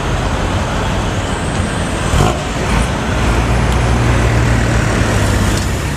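Bus engine running with a rough, snoring ('ngorok') exhaust note. Its low drone grows stronger about three seconds in, and there is a short knock a little past two seconds.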